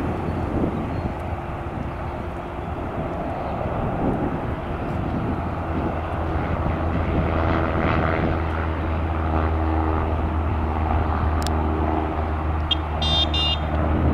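A Boeing 737-800's twin turbofans running at taxi power: a steady low rumble with a jet hiss. From about six seconds a low-flying propeller aircraft adds a droning hum that swells and fades by about twelve seconds. A brief high chirping sounds near the end.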